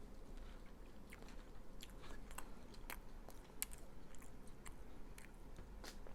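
A person chewing a mouthful of food close to the microphone: irregular small wet clicks and soft crunches.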